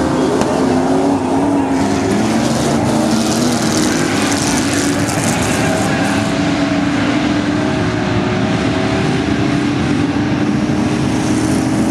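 A field of V8 dirt-track stock cars racing together, their engines running in a continuous drone of overlapping notes that rise and fall as the cars go through the turn and down the straight.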